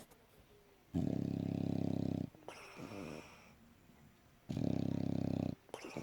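English bulldog snoring in its sleep: two loud, rattling snores about three and a half seconds apart, each lasting a second or so, with a softer breath after each.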